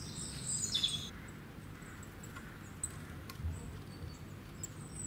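Faint high bird chirps in short stepped phrases, mostly in the first second, over low background noise, with a few light clicks.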